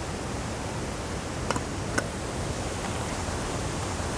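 Steady rush of stream water, with two short metallic clinks about a second and a half and two seconds in, the second the louder: the lid of a metal camping pot knocking against the pot.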